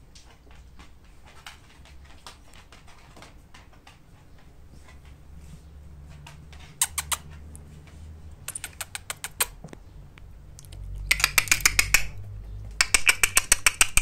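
Italian Greyhound puppies moving about in their playpen: scattered soft clicks, then quick trains of sharp high clicks, about ten a second. These come in bursts from about halfway through and are loudest in the last few seconds.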